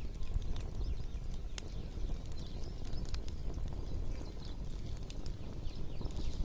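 Open wood fire of sticks and twigs crackling, with irregular sharp pops and clicks over a steady low rumble.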